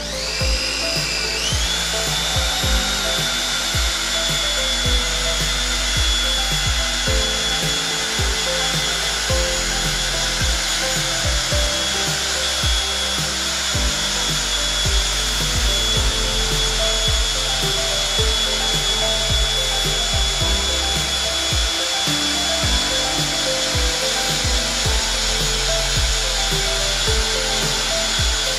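Cordless drill running continuously, driving the screw of a motorcycle lift to raise the bike. Its whine climbs in pitch over the first second or so as it spins up, then holds steady.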